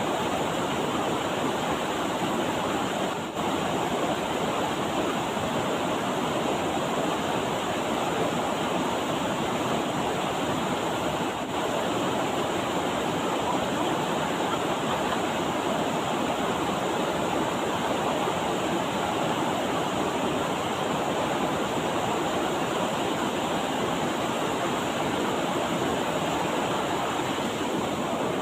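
Steady rush of a rocky mountain river's flowing water.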